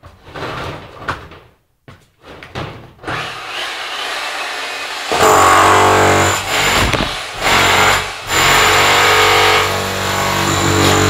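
Knocks and handling noises, then about five seconds in a motor starts and runs loudly with a steady hum and a high whine, its level dipping briefly a few times.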